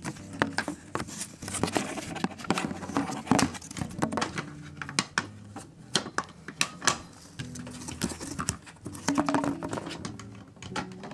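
Plastic cat carriers being handled and fastened: a run of irregular clicks, knocks and rattles from the plastic shells and wire doors.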